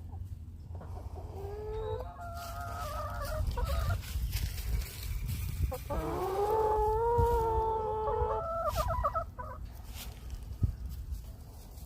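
Chickens clucking, with two long rooster crows: a shorter one about a second and a half in and a longer one about six seconds in that rises at its start. A steady low rumble sits underneath.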